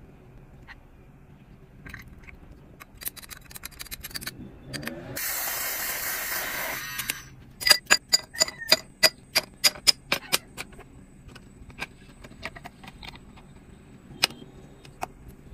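Ice balls placed with metal tongs into a tall drinking glass: a quick run of about a dozen sharp, ringing clinks of ice and metal against glass. Before them come a few light clicks and a steady hiss lasting about two seconds.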